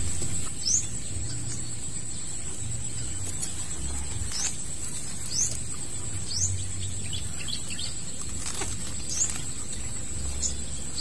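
Small bird calling outdoors: short, high chirps that fall in pitch, one every second or so at uneven gaps, over a steady high-pitched whine.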